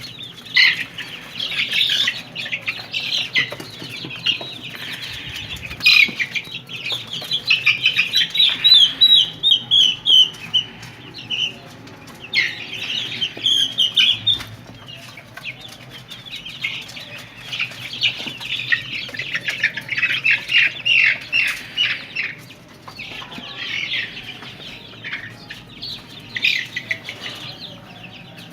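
A flock of five-week-old Golden Misri chicks cheeping continuously in rapid runs of short high-pitched calls, some runs falling in pitch.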